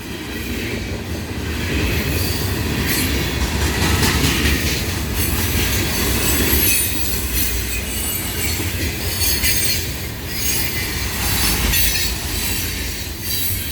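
Loaded freight cars, rock hoppers and gondolas, rolling past: steel wheels rumbling on the rails with a high squeal and hiss that swells and fades.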